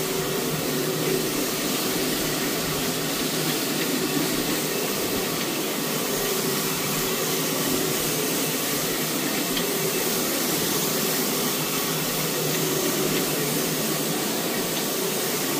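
A 175 rpm rotary floor machine running steadily as it is worked across the carpet: an even motor hum over a constant scrubbing hiss.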